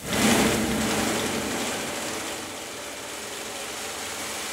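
Homemade 2x72 belt grinder with a VFD-driven electric motor starting up in forward, the abrasive belt coming up to speed at once and then running steadily with no workpiece on it. The sound is loudest in the first second, then settles to a slightly lower, even level.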